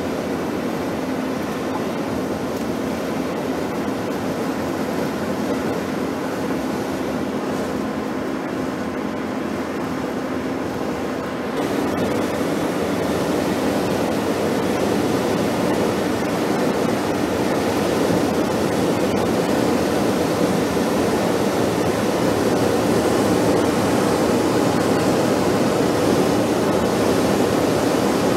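Steady road and wind noise inside a car cruising at highway speed, with a faint low hum. About eleven seconds in it steps up louder and hissier.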